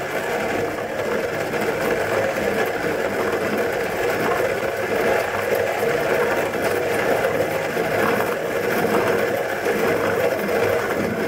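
Lyn Weber HG-1 hand coffee grinder's 83 mm Mazzer conical burrs grinding whole coffee beans as the crank is turned, a steady unbroken grind, with the burrs set at zero.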